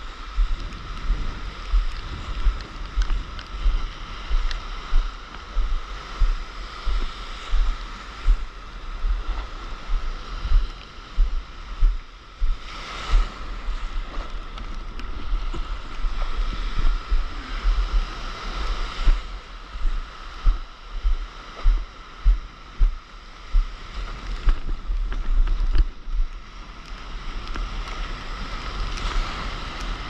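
Surf and churning water washing around a stand-up paddleboard, with rapid low thumps about one or two a second, and two louder rushes of breaking water a little under halfway in and again about two-thirds in.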